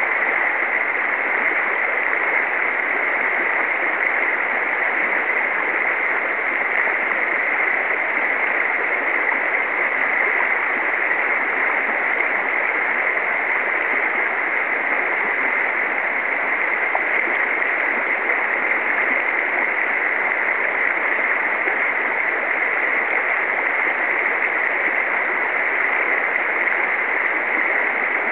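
Shallow river riffle flowing steadily: a constant, even rush of water.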